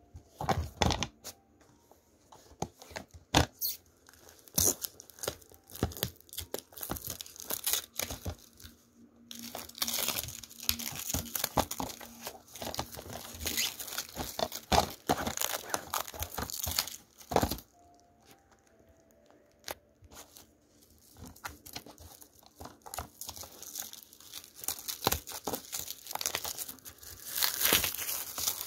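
Clear plastic shrink wrap being torn and crumpled off a DVD case: irregular crinkling and tearing with a few short pauses.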